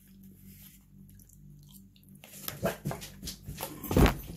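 Close-up chewing and mouth sounds of someone eating, in short clicky strokes that begin about halfway through, then a few loud sharp sounds near the end.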